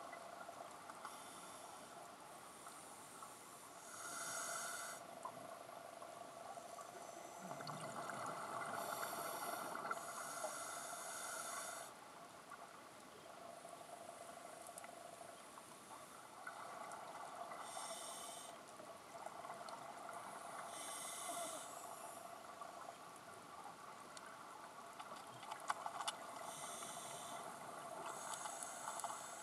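Scuba diver's regulator breathing heard underwater: bubbly exhalation surges every few seconds, one long one lasting several seconds, over a steady hiss, with a few sharp clicks near the end.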